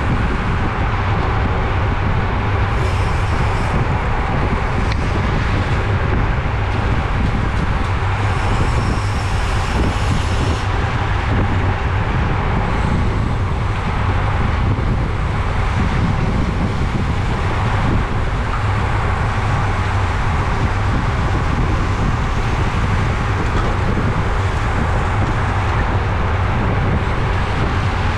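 Steady wind rushing over the microphone of a camera mounted on a road bike moving at race speed, with a low rumble of road noise underneath.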